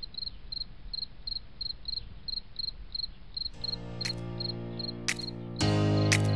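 Evenly repeated high chirps, about three a second, like a cricket, over a soft hiss. About halfway through, intro music with sustained chords comes in under the chirps and swells louder near the end.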